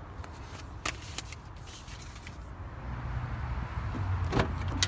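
Handling noise: a paper sheet rustling, with a few sharp clicks about a second in. A low rumble then builds from about three seconds, and a single sharp knock comes near the end.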